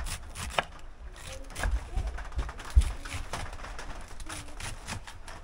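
Knife chopping cabbage on a wooden cutting board: a string of irregular knocks, with a few heavier thumps about two and three seconds in.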